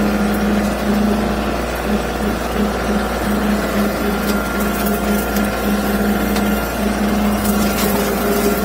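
Bobcat CT2025 compact tractor's three-cylinder diesel engine running steadily under work, with a low hum that pulses about once or twice a second.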